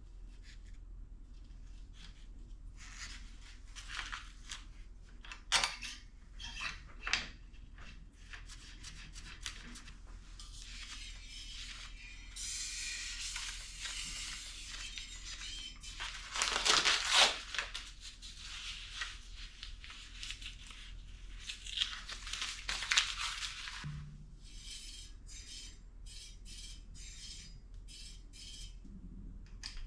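Hands-on work with bicycle parts and tools: scattered clicks and knocks and several bursts of rustling, ending in a quick run of evenly spaced clicks.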